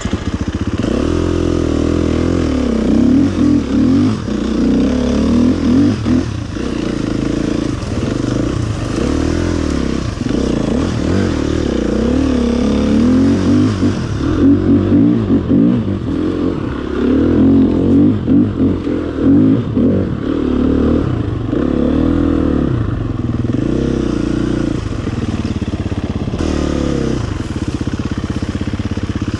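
KTM EXC-F 250's single-cylinder four-stroke engine running, revved up and down over and over at low speed, its pitch rising and falling every second or two.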